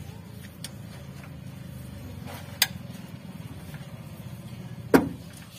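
Metal hand tools clinking against an engine's cylinder head as a socket wrench and extension are worked on the head bolts: three sharp clinks, the last and loudest about five seconds in with a brief ring. A low steady hum runs underneath.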